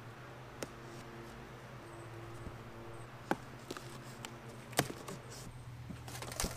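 Large cardboard box being opened with a knife: quiet handling and scraping of the cardboard, broken by a few sharp clicks and taps, the loudest almost five seconds in, over a faint steady hum.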